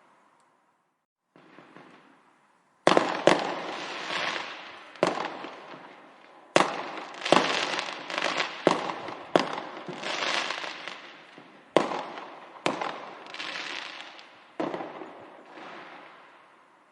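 Fireworks going off: after a quiet start and one faint burst, about a dozen sharp bangs come in quick succession from about three seconds in, each trailing off in crackling that fades. They thin out and die away near the end.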